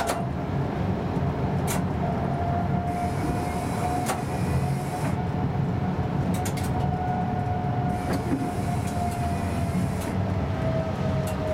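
Tram running along its track: a steady rumble of wheels on rails with a motor whine that rises slowly as it gathers speed and drops back a little near the end. A few sharp clicks from the track come through it.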